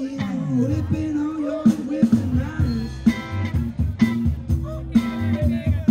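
Live band music, a bluesy rock number on electric guitar, drum kit and saxophone, with a bending lead line carried over the top.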